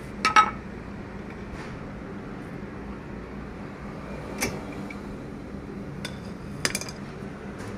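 Metal hand tools clinking and clanking against a car's disc brake caliper and hub: a sharp double clank near the start, a single clink about halfway, and a few more clinks toward the end.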